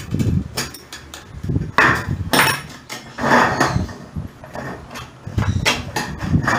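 Thin powder-coated GI (iron) sheet being bent and handled by hand, the metal flexing and rattling in several short, noisy bursts.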